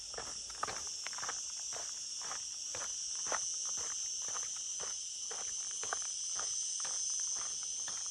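Footsteps of a walker at a steady pace, about two to three steps a second, over a continuous high-pitched chorus of insects.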